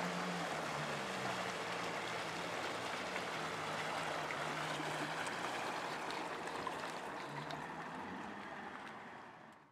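Old carbureted Johnson outboard motor running at low speed, its hum wavering slightly and sliding down in pitch, under a steady rush of water from the boat's wake; it all fades out near the end.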